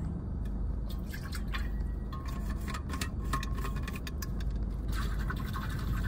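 Water sloshing and dripping in a Frank Green water bottle as it is handled and drunk from, with many small clicks and taps from the bottle and its lid.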